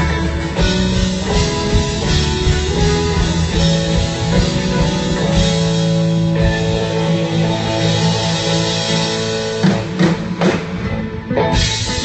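A country-rock band playing live through a large stage PA system, with guitars and drums. Two sharp hits come a little before the end, after which the playing thins out.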